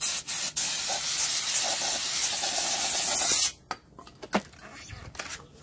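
Aerosol brake parts cleaner sprayed onto a new brake rotor to wash off its oily anti-corrosion coating: a couple of short puffs, then a steady hiss of about three seconds that stops abruptly. A couple of light knocks follow.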